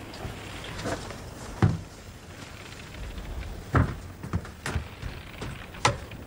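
A few irregular wooden knocks and thuds over a low steady rumble, the strongest about one and a half seconds in and again near four seconds, coming closer together near the end.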